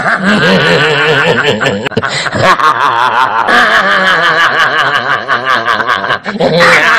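A man laughing loudly and wildly without pause, the pitch wavering up and down, with a short break about two seconds in.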